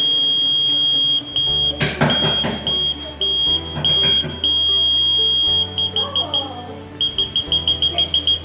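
Small electronic buzzer sounding a loud, steady high tone, broken by short gaps, then pulsed in quick beeps during the second half. Background music with a steady low bass plays underneath, and there is a brief knock about two seconds in.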